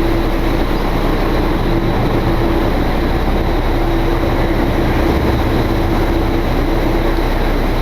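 Sportfishing charter boat's engine running steadily at trolling speed: a loud, even drone with a steady hum that fades in and out.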